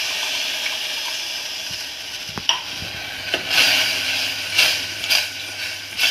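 A metal spoon stirring sugar into water in a stainless steel saucepan: a couple of clinks, then gritty scraping strokes against the pan bottom in the second half. Under it runs a steady sizzling hiss from the pans on the stove.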